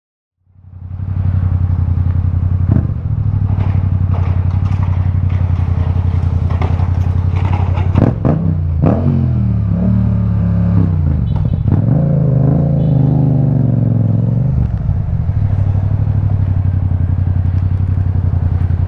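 Yamaha MT-07's parallel-twin engine running as the motorcycle is ridden, fading in under a second in. The engine note holds steady, then rises and falls several times in the middle as the engine speed changes, with a few sharp clicks.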